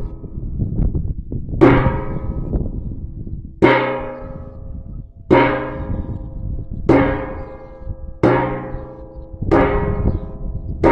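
A resonant object struck over and over, about every one and a half seconds, each hit starting sharply and ringing out with a deep pitched tone that fades before the next.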